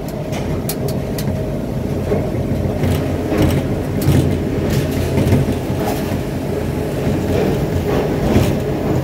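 Gateway Arch tram capsule running down the inside of the arch's leg: a steady low rumble of the moving car with scattered clicks and clanks.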